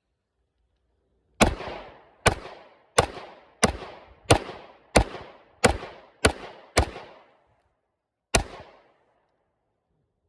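Smith & Wesson CSX 9mm pistol fired ten times: nine shots in a steady string about two-thirds of a second apart, then a pause of about a second and a half before the last shot. Each shot is followed by a short ringing echo.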